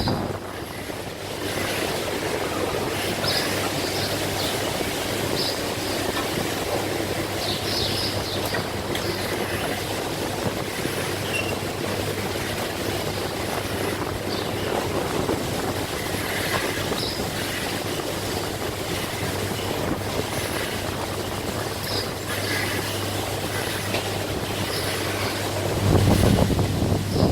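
Rotary milking parlour machinery running: a steady mechanical rumble with a constant low hum and short, high hisses and squeaks scattered through. It grows louder about a second before the end.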